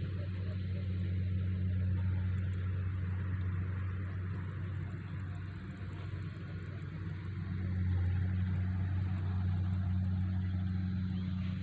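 An engine running steadily with a low drone that holds an even pitch, a little louder about two-thirds of the way in.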